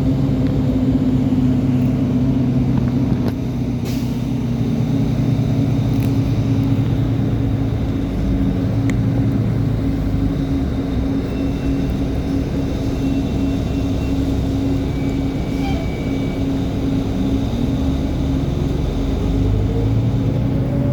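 Transit bus engine running steadily with a constant pitched hum. Over the last few seconds a rising whine begins, as if the bus is speeding up.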